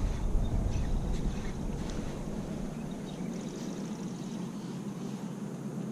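Steady outdoor noise of water and wind around a kayak in a running current, with a few faint light ticks in the middle.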